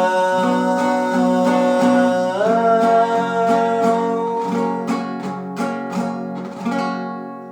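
Acoustic guitar strummed through the song's closing chords, with a long held note that steps up in pitch about two and a half seconds in; the strumming thins out and the sound fades away near the end.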